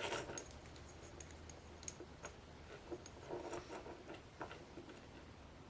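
Faint, scattered small clicks and ticks of metal padlock parts being handled while an American 5200 padlock is taken apart.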